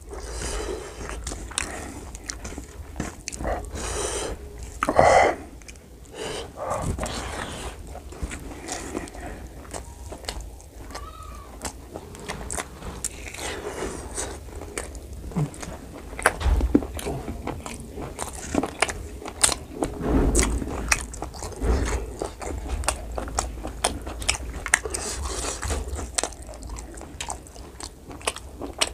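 Close-miked mouth sounds of pork curry and rice eaten by hand: wet chewing and biting, with many irregular little clicks throughout and a few louder bites.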